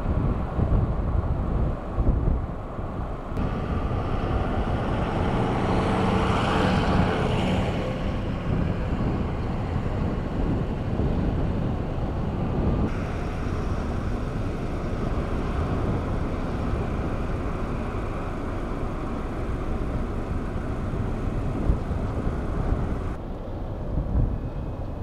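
Wind rumbling on the microphone, with a vehicle engine swelling and fading about five to eight seconds in.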